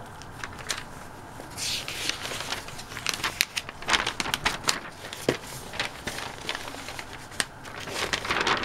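A large folded sheet of thin pattern paper rustling and crinkling as it is handled and unfolded, a run of quick irregular crackles starting about two seconds in.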